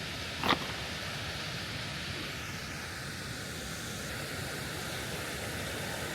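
Steady rushing outdoor noise, with a single sharp knock about half a second in.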